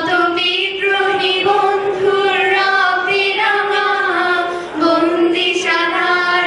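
A high female voice, or voices in unison, singing a Bengali song with long held notes that slide between pitches. There is little or no instrumental backing.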